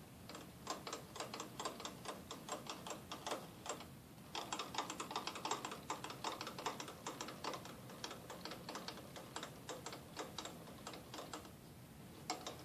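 Rapid, irregular light clicking, like typing: a looser run over the first few seconds, a brief pause, then a denser run from about four seconds in to about eleven.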